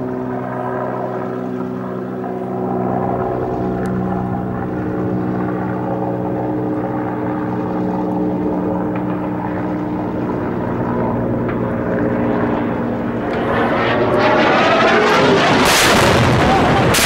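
A military helicopter droning overhead with a steady engine and rotor tone. About three seconds before the end a bomb goes off: a loud, rumbling blast that swells up and drowns the drone.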